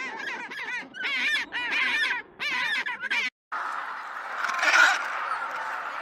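A flock of waterfowl, geese or ducks by the tags, calling in rapid, repeated honks for about three seconds. The calls cut off abruptly. After that comes a different, noisy rushing sound that swells briefly about five seconds in.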